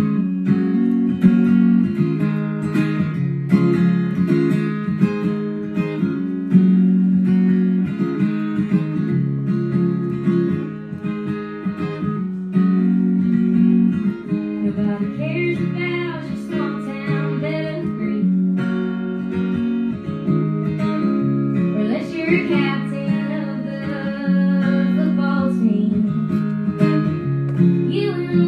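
Acoustic guitar strummed in a steady rhythm through a live country song.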